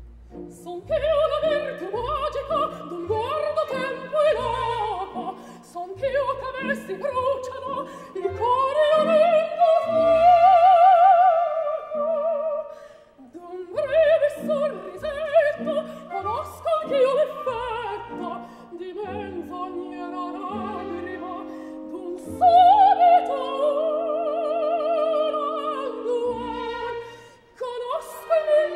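Operatic soprano singing an aria with wide vibrato and long held high notes, over a light orchestral accompaniment with short, regularly spaced bass notes.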